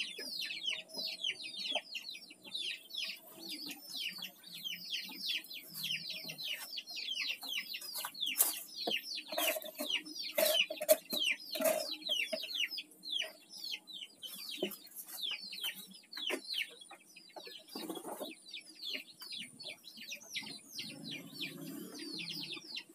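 Chickens calling nearby: a continual chorus of short, high peeps falling in pitch, several a second, with a few sharp knocks in between.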